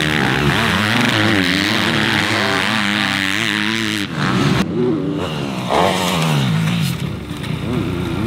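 Yamaha motocross bike's engine revving hard and falling back again and again under throttle, the pitch climbing and dropping every second or so; it dips briefly about four seconds in.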